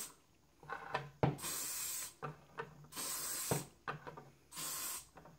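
Aerosol hairspray can spraying in three short bursts, each under a second, with a few light knocks between bursts. The hairspray goes on as the chipping layer before the paint.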